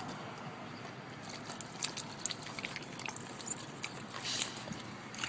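Boxer dogs licking their chops and sniffing close to the microphone: a scatter of small wet clicks and smacks, thickest from about two to four and a half seconds in, over a steady low hum inside the car.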